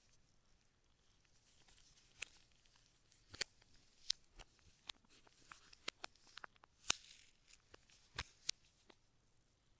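Packaging being handled by hand: crinkling and rustling with scattered sharp clicks and snaps, the loudest about seven seconds in.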